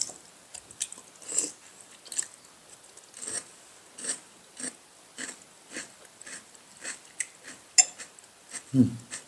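A person chewing food at the table, soft mouth clicks about every half second, with a sharper clink of tableware about eight seconds in.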